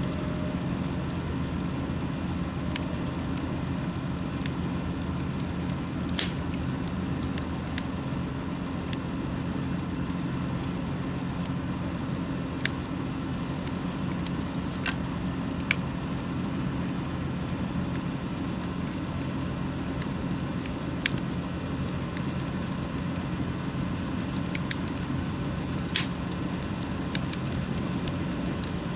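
Wood campfire crackling, with scattered sharp pops, the loudest about six seconds in and near the end, over a steady low background rumble.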